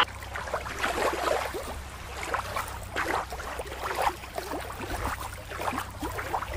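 Small waves lapping and splashing against shoreline rocks in quick, irregular slaps, over a steady low rumble.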